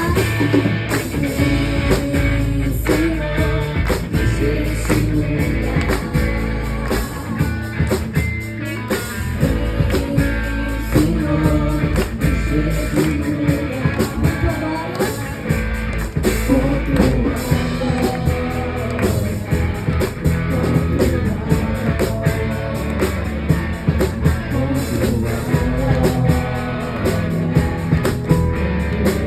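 Band music in a rock style, with guitar and a steady drum beat.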